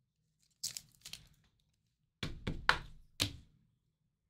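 Trading cards being handled: a few short slides and taps of cards and card sleeves against each other and the table, with a closer cluster of taps past the halfway point.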